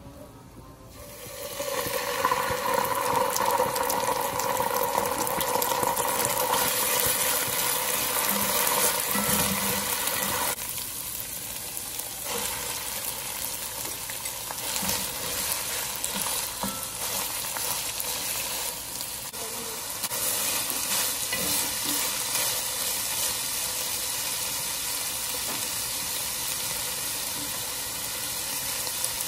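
Chopped onions, then ground chicken, sizzling as they fry in oil in a nonstick pot, stirred with a wooden spoon. The sizzle builds about a second in and dips briefly partway through.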